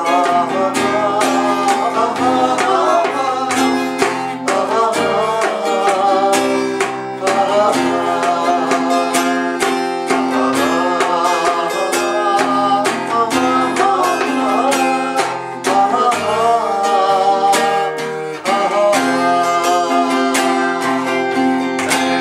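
A man singing, accompanied by a strummed acoustic guitar in a steady rhythm.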